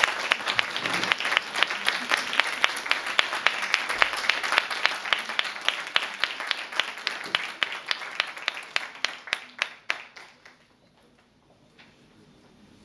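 Audience applauding. The clapping thins out to scattered single claps and dies away about ten seconds in.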